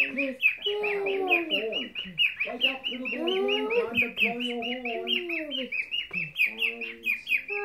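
A cockatiel chattering in a fast, even run of short chirps, about six a second, while a voice makes long, wordless sliding tones beneath it.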